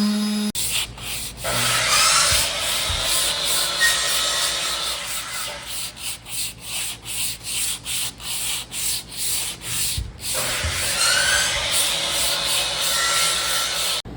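Sanding on the fiberglass deck of a 1984 Dusky center console, a steady scratchy rub. In the middle it breaks into regular back-and-forth strokes, about two a second, before running steadily again.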